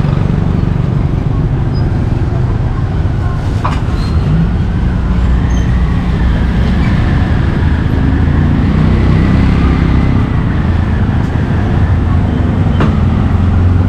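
Steady rumble of street traffic, loudest in the low end, with a faint high whine for a few seconds midway.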